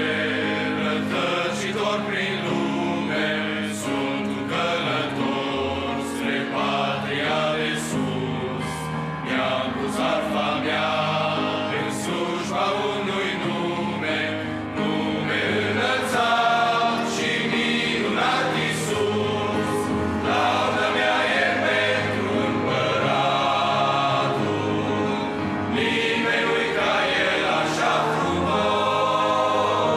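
Men's choir singing a hymn in Romanian, in sustained multi-part harmony, with grand piano accompaniment.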